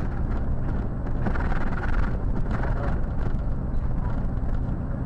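Steady low rumble of a car driving along a city street, engine and tyre noise as picked up by a dashcam mounted in the car.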